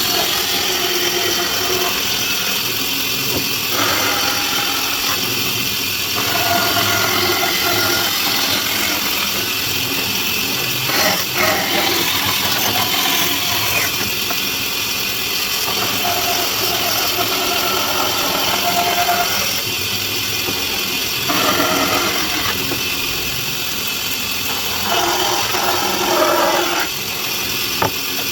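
A motor-driven tool running steadily, its tone changing in stretches of a few seconds.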